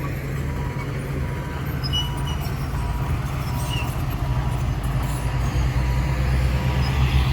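Heavy diesel engines of a dump truck and bulldozer running steadily, building a little louder near the end. A faint reversing alarm beeps about twice a second.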